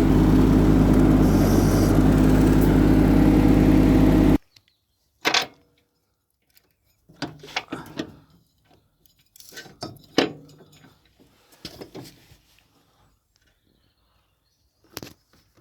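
Kubota ride-on mower's engine running steadily, then shut off abruptly about four seconds in. After that come scattered clinks and knocks of parts and tools being handled.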